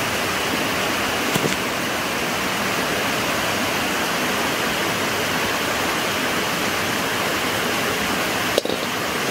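A steady rushing noise, like running water or hiss, with no clear pitch, broken by two faint clicks: one about a second and a half in and one near the end.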